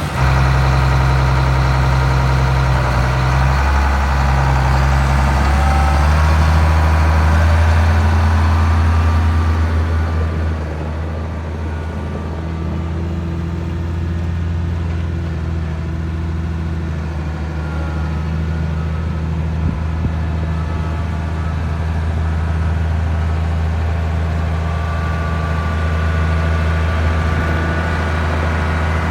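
Case IH 8920 tractor's diesel engine idling just after start-up. It runs steadily, somewhat louder for the first ten seconds or so, then settles to a lower, even idle.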